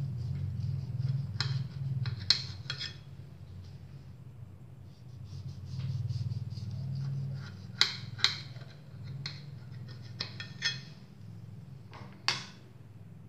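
Serrated knife cutting through a baked sponge cake on a ceramic plate, the blade clinking and scraping against the plate about a dozen times in clusters, loudest near the middle and once near the end. A low steady hum runs underneath.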